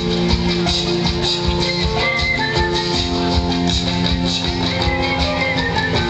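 Live band music from the stage: guitars over a drum kit, with held notes and a steady beat.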